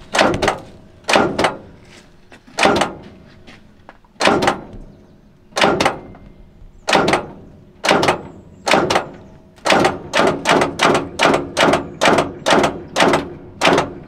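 Repeated sharp metallic knocks from the engine bay of a Kirovets K-700A tractor that has stood for six years, while its belt-driven pulley moves only a little. The knocks are spaced at first, then come about two to three a second from about ten seconds in.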